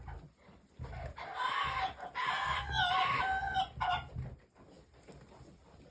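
A rooster crowing once: one drawn-out, wavering call of about three seconds, starting just over a second in.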